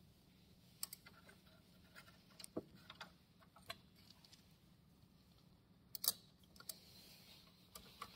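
Faint, scattered clicks and small knocks of hands working on the fittings and cables of a Raytools BM110 fiber laser cutting head, the sharpest a close pair of clicks about six seconds in.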